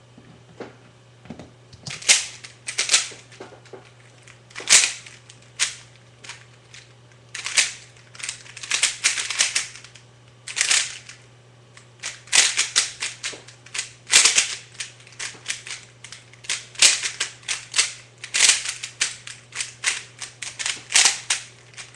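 GuHong 3x3 speedcube being turned quickly by hand: rapid clicking and clacking of layer turns in irregular bursts with short pauses between them.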